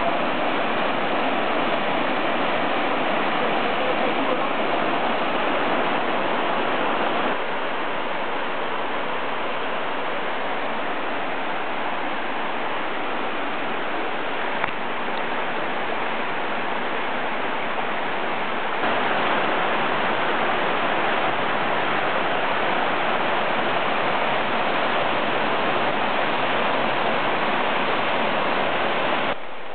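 Waterfall and stream water rushing steadily, an even noise that steps slightly down about seven seconds in and back up about nineteen seconds in.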